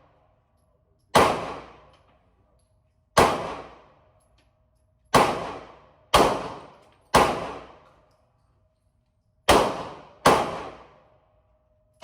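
Seven gunshots at a shooting range, spaced unevenly about one to two seconds apart, each with a short echoing tail.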